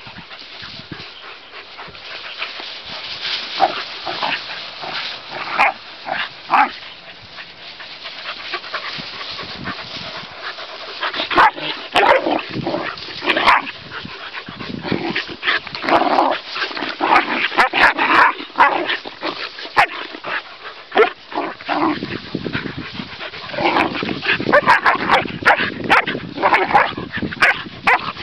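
Two Airedale Terriers play-fighting and barking in short bursts. The barks are sparse at first and come in thick clusters through the second half.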